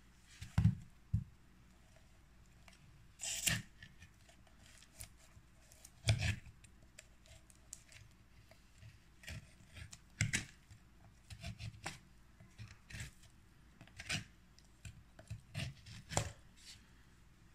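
Metal spoon scraping and prying inside a trimmed young coconut, in short, irregular scrapes and knocks roughly a second apart.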